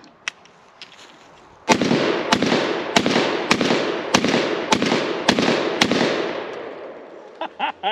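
Benelli M4 12-gauge semi-automatic shotgun fired eight times in quick succession, a shot a little more than once a second, starting nearly two seconds in. Each shot leaves a long echo that fades out after the last one.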